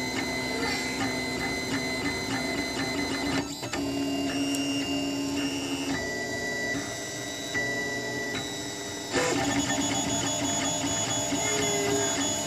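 Printrbot Simple Metal 3D printer's stepper motors whining in steady pitched tones as the print head traces the outline of a small test square. The pitch jumps with each new move, most clearly about three and a half seconds in and again about nine seconds in.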